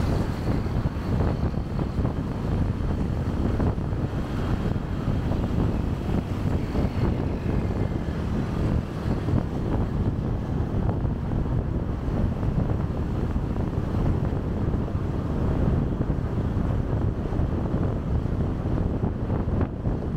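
Wind buffeting the microphone of a moving motorcycle, a steady low rumble of wind and road noise.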